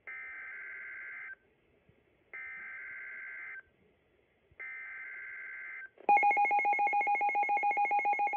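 NOAA weather radio receiving an emergency alert: three short buzzy bursts of SAME digital header tones with pauses between them, then about six seconds in a loud alert tone starts beeping rapidly, about eight beeps a second, sounding the alarm for a flash flood warning.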